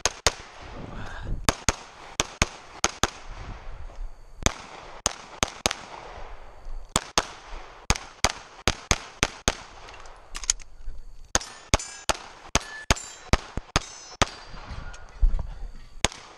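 Pistol firing a rapid stage string: sharp shots, mostly in quick pairs a fraction of a second apart, about three dozen in all, broken by brief pauses of about a second near the middle.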